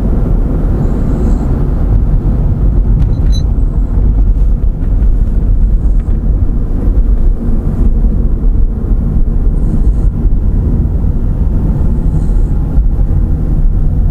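A loud, steady low rumble, with faint short hissing sounds every few seconds.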